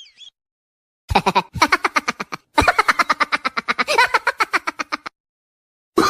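Laughing sound effect: rapid pulsed laughter in two bursts, the first about a second long and the second about two and a half seconds, separated by a brief gap.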